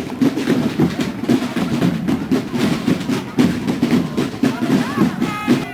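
Procession band drums beating a fast, steady, rolling rhythm.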